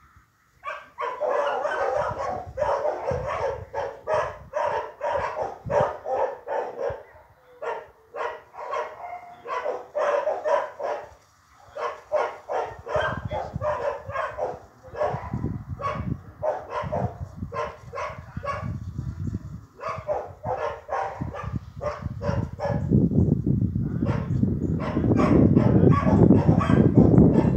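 Dog barking repeatedly, about two barks a second, with short pauses. A low rumbling noise builds underneath and is loudest in the last few seconds.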